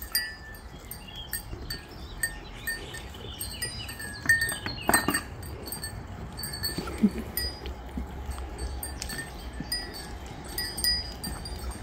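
Small metal collar bells on goats clinking and ringing irregularly as the animals move about.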